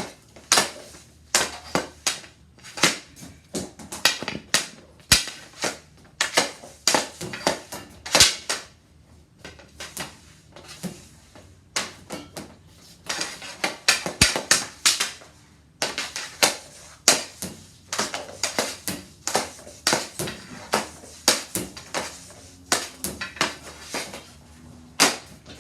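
Hockey stick hitting pucks on synthetic ice tiles, with pucks clacking off the rebound passers. It is a steady run of sharp cracks, often two or three close together, about once a second.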